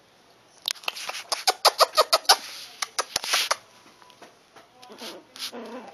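Young Shih Tzu puppies squeaking and yipping in a quick run of short, sharp cries, then softer, lower whining near the end.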